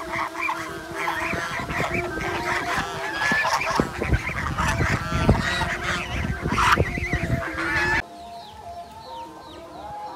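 A flock of domestic geese honking loudly and continuously, many calls overlapping. About eight seconds in, the sound drops abruptly to a much quieter mix of faint chirps and clucks.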